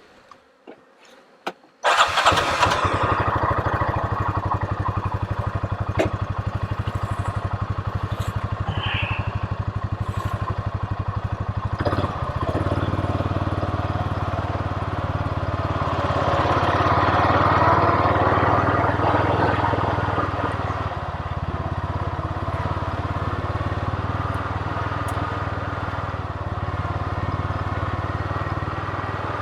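An engine starts suddenly about two seconds in and then runs steadily with a fast, even beat, getting louder for a few seconds past the middle.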